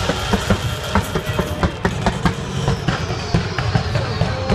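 Fireworks display: aerial shells bursting and crackling in rapid succession, a dense run of sharp pops close together.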